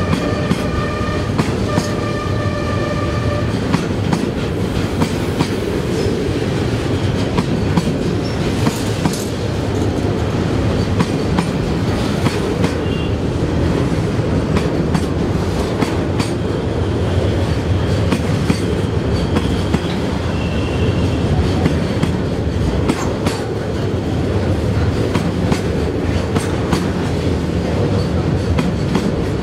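Container freight train of loaded flat wagons rolling past: steady rumble with the clickety-clack of wheels over rail joints. A horn sounds in two blasts over the first few seconds.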